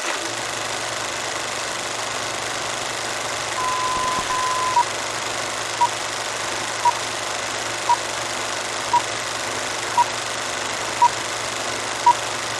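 Steady hiss with a low hum under it. About four seconds in, a high electronic beep sounds twice, held, then short beeps of the same pitch follow about once a second, eight times, like a countdown.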